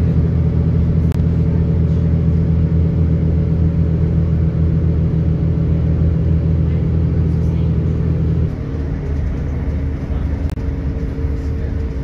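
Diesel commuter train's engine running with a steady low drone, heard from inside the carriage; the drone eases off a little about two-thirds of the way through.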